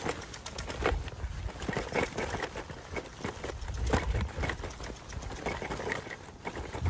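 Footsteps on a cobblestone street, an uneven series of short knocks, over a low rumble of wind and handling on the microphone.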